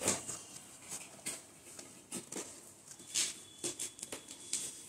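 Scattered light clicks and taps of hard plastic toy parts, a duck-shaped ball toy and its stacking cups, being handled and knocked together by a baby, with a few sharper knocks spread through.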